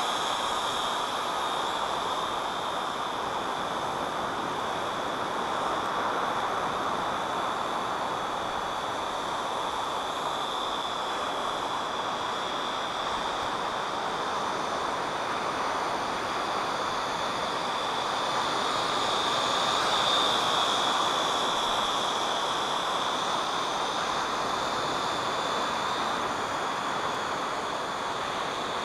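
Syma X8C quadcopter's motors and propellers whining steadily in flight, the pitch and loudness wavering and rising a little about two-thirds of the way through, over a steady hiss.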